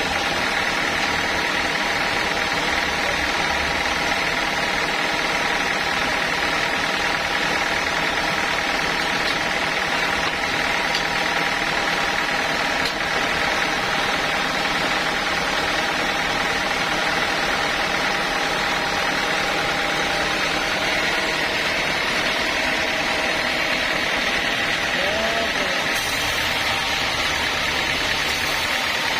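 Homemade sawmill machine running steadily: a constant engine hum with steady whining tones over it, hardly changing throughout.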